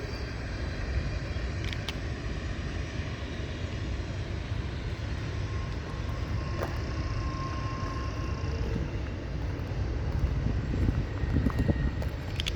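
Freight train rumbling steadily as it runs past, a low, even rumble with a faint brief high tone about seven seconds in.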